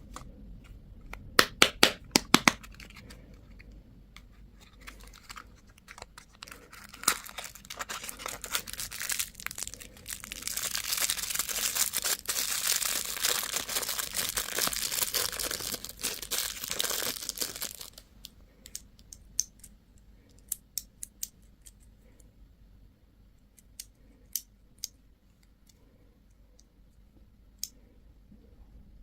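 Candy wrapper being torn open and crinkled by hand. A quick run of loud sharp clicks about a second in, a long stretch of dense crinkling in the middle, then scattered small clicks.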